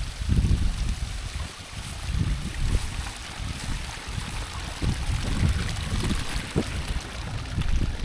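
Wind buffeting the microphone: uneven low rumbling gusts over a steady hiss.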